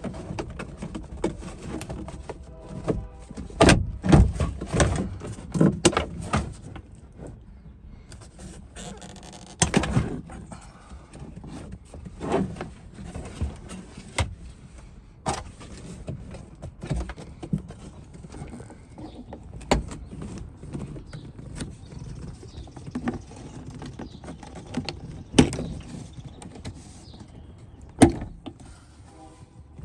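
Plastic interior trim panels of a 2013 Fiat being pried and pulled off: irregular sharp clicks and knocks with rattling and handling noise, loudest about 4, 10 and 28 seconds in.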